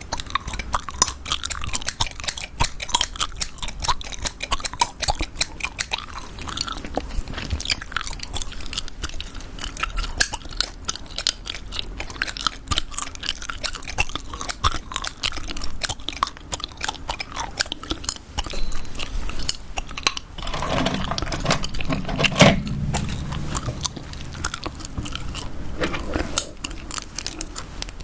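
Gum being chewed close to the microphone: a dense run of quick, wet, sticky clicks and smacks. About twenty seconds in, a louder, lower sound joins for several seconds.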